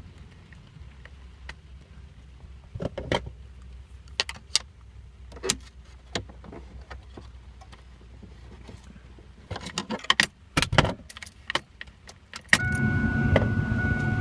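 Ignition key and small steering-column parts of a 2001 Camaro clicking, knocking and jangling as the column linkage is worked by hand, with a faint low hum under it. About twelve and a half seconds in, a louder steady hum with a high steady whine starts up.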